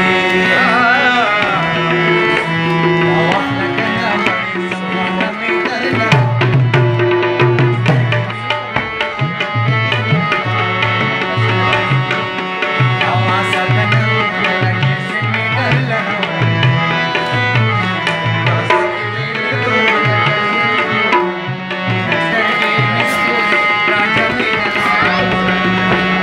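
Harmonium playing a melody over held reed notes, with a steady drum beat joining about six seconds in.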